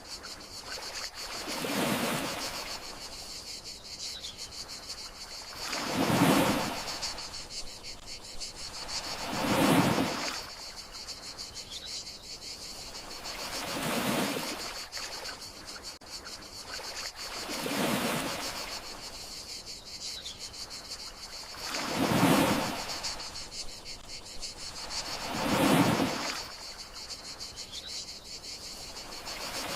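Gentle sea waves washing in and drawing back about every four seconds over a steady chorus of crickets. A faint short chirp comes about every eight seconds.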